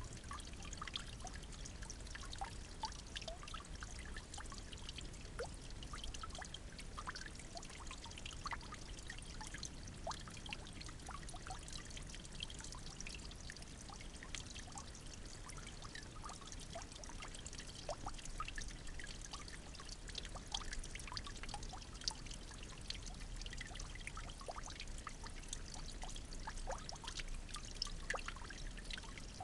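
Running water trickling steadily, dotted with many small drips and splashes.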